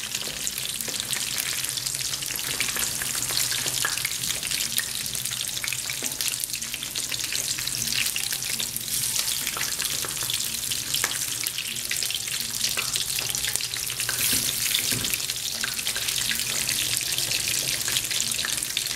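Egg-battered hake fillets shallow-frying in hot oil in a frying pan, a steady crackling sizzle.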